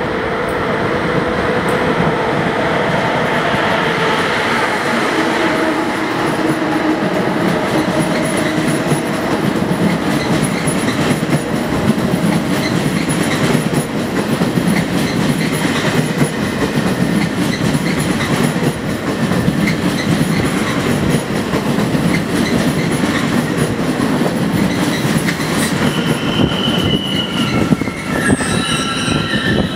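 Deutsche Bahn ICE high-speed train rolling past a platform: a steady rumble of wheels on rail with light clicking over the rail joints. About four seconds before the end, a high wheel squeal sets in.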